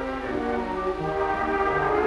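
Orchestral background music from the film's soundtrack: held notes and chords moving from note to note.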